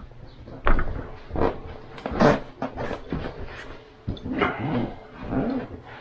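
A dog making a few short sounds at irregular moments, with knocks in between.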